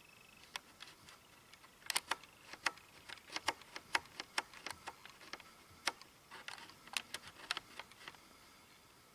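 Clear slime being kneaded and folded, trapped air bubbles popping in sharp, irregular clicks, some in quick runs, that stop about a second before the end.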